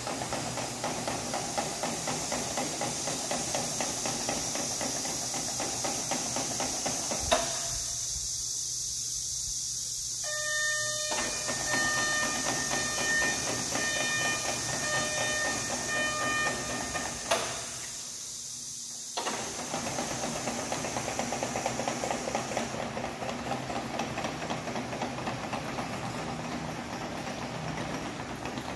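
Tracked aerial work platform running and moving on its rubber crawler tracks: a steady machine noise with a high hiss. From about ten seconds in, a pitched alarm tone sounds for several seconds, and there are two sharp knocks, one just before the tone and one as it ends.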